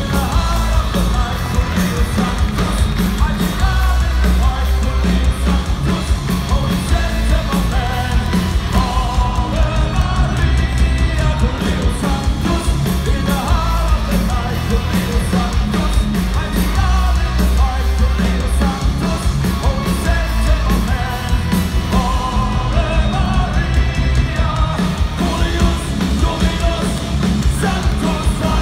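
Power metal band playing live: drums, electric guitars and a sung lead vocal, loud and continuous with a heavy low end.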